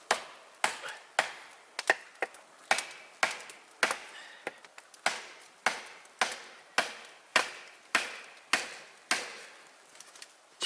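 Firewood being chopped: a steady run of sharp, even blows on wood, nearly two a second.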